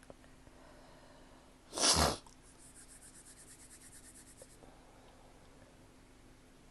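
A single loud human sneeze about two seconds in, one short explosive burst, with a faint intake of breath just before it. The person takes it for an allergy sneeze from the spring air. After it comes a faint, rapid high ticking for about two seconds.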